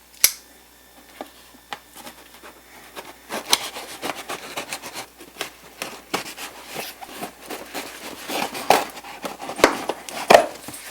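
A box being unpacked by hand: repeated rustling and scraping of packaging with small knocks and clicks, a sharp click right at the start and the loudest knocks near the end.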